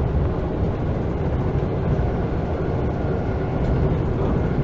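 Interior noise of a DB Class 442 (Bombardier Talent 2) electric multiple unit: a steady rumble from the running gear and traction equipment as the train runs.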